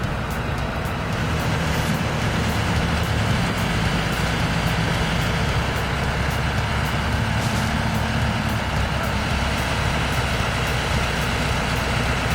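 Heavy diesel engines running steadily under load as vehicles try to get grip on slick ground, with a faint regular ticking about twice a second.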